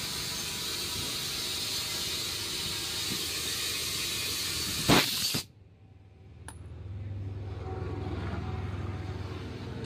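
Steady hiss of compressed air from an air hose feeding a truck tyre's inner tube. It ends with a sharp click and a sudden cut-off about five seconds in. After that a low steady hum builds.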